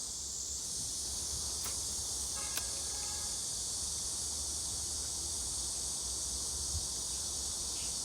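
Steady high-pitched insect chorus over a low rumble, with a brief faint tonal call about three seconds in.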